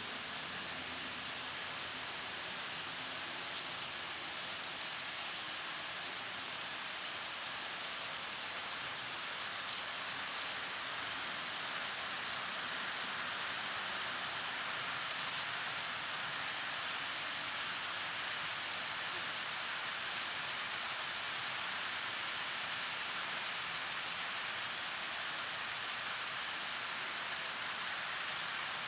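HO-scale model freight trains rolling along the layout's track: a steady, even hiss of wheels on rail that grows a little louder about eleven seconds in, when a second train is running alongside on the next track.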